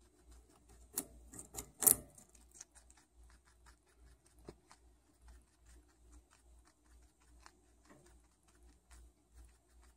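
Guinea pig biting and chewing a raw carrot: fast, crisp crunching clicks, loudest about one and two seconds in.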